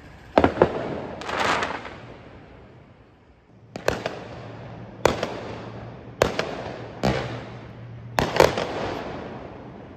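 Aerial fireworks shells bursting overhead: about eight sharp bangs at irregular intervals, each trailing off in a rolling echo, with a longer crackling burst about a second and a half in.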